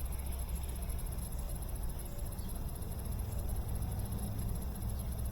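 GE top-load washing machine running a spin test: a steady low hum that shifts somewhat higher in pitch about halfway through.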